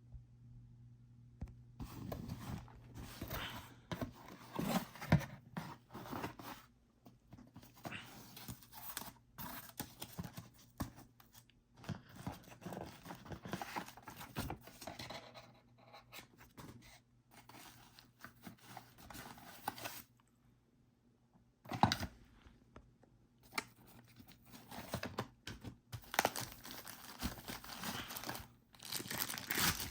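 Product packaging being opened and handled by hand: tearing, rustling and crinkling in uneven bursts with short pauses, and a few sharp knocks, the loudest about 5 and 22 seconds in.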